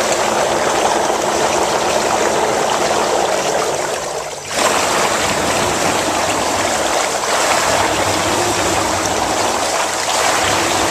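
Jacuzzi Elite Series whirlpool tub's air blower running in its high-and-low pulse mode, steadily churning and bubbling the bath water; the output drops briefly about four seconds in, then surges back.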